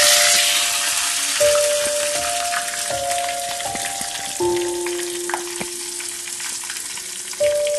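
Chillies frying in hot mustard oil with fenugreek and black cumin seeds in a small steel pan, sizzling loudly at first and then settling to a steadier hiss.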